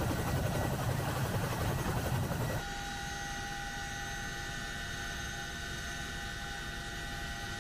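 CH-47 Chinook helicopter running with its rotors turning: loud, deep rotor and engine noise beside the aircraft, then, about two and a half seconds in, a sudden change to the steadier noise inside the cabin, with several steady high-pitched whines.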